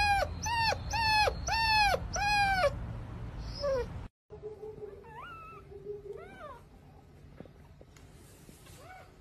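A puppy whining in a run of about five high, falling cries, evenly spaced, over the first three seconds. After a short break a few fainter puppy whimpers follow.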